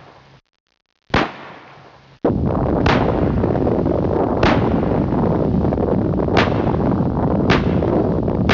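Intro sound effects: two sharp, booming hits, each fading away, then from about two seconds in a loud, dense, noisy rush punctuated by sharp hits every second or two.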